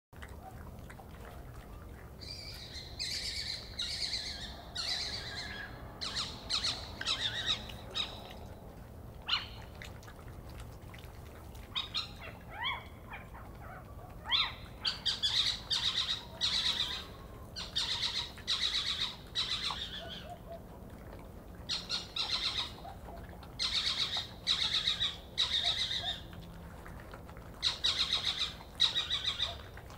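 Repeated harsh, hissing screech calls, which the uploader takes to be a juvenile little owl's. They come in runs of several short calls, with pauses of a second or more between runs.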